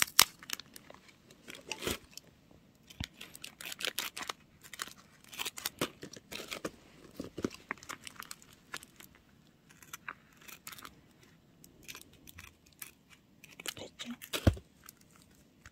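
Scissors snipping through a clear-taped paper squishy, mixed with the crackle and rustle of the stiff tape being handled, as irregular sharp clicks. A soft thump comes about a second before the end.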